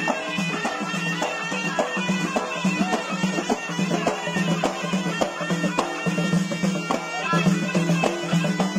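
Traditional folk music: a reedy wind instrument played over a steady drone, with hand frame drums beating an even rhythm.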